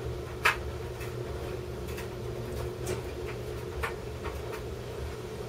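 Light clicks and taps of small tools and parts as an iPod Touch is worked apart, about half a dozen, the clearest about half a second in, over a steady low hum.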